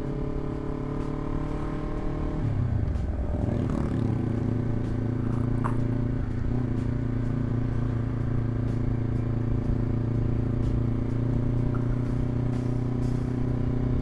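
Honda CBR250RR parallel-twin engine running through a Villan MV2 aftermarket exhaust while the bike is ridden. The engine note drops in pitch about two to three seconds in, then holds a steady note.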